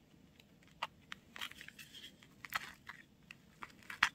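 Tape-covered paper squishy crinkling and crackling as fingers squeeze and work it, with scattered small clicks and rustles and a sharper click near the end.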